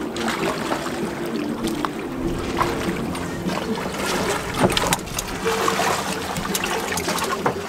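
A small wooden rowing tender being rowed: oars knocking in their rowlocks and dipping into the water in repeated short strokes, with a tune playing underneath.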